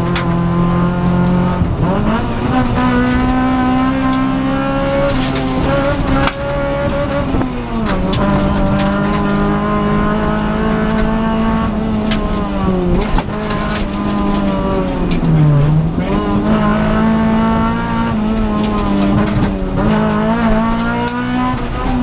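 Honda Civic rally car's engine heard from inside the cabin at hard throttle on a stage, its pitch climbing through the revs and dropping sharply at gear changes and lifts for corners, with a deep dip about fifteen seconds in before it pulls back up.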